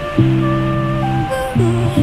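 Background music: held low notes with a melody moving above them.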